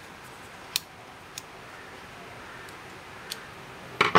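Light metal clicks of a saw chain and guide bar being handled on an angle-grinder chainsaw attachment: a few separate ticks, then a louder clatter of metal at the very end.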